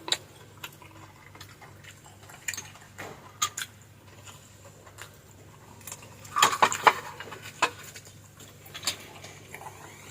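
Scattered clinks of cutlery against plates and bowls while eating fried fish and clam soup, with a quick cluster of clinks about six seconds in.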